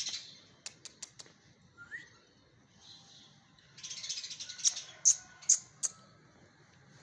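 Small birds chirping in short, high bursts, with a run of four loud, sharp chips a little after the middle.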